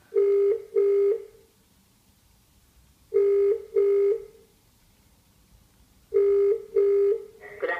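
Telephone ringback tone through a desk phone's speakerphone: three double rings about three seconds apart as the called line rings out before it is answered.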